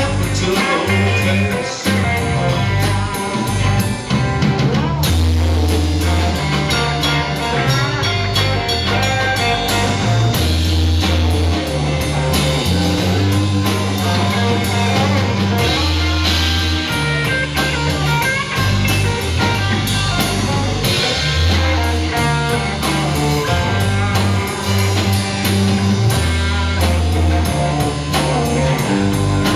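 Live band playing a reggae-blues cover, with electric guitars, a bass guitar line and a drum kit.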